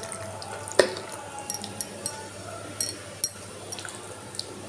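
Glass bangles clinking on the wrist of a hand kneading marinated chicken in a steel bowl: a string of sharp, bright clinks, with a louder knock against the bowl about a second in and soft wet squishing of the marinade.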